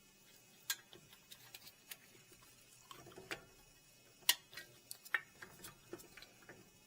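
Scattered light clicks and knocks, about a dozen at uneven spacing with the loudest a little past four seconds in, from handling a brake caliper as it is moved back into place.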